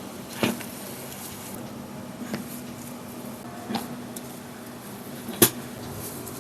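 Four sharp joint cracks from chiropractic spinal adjustments, spaced about one and a half to two seconds apart, the last the loudest.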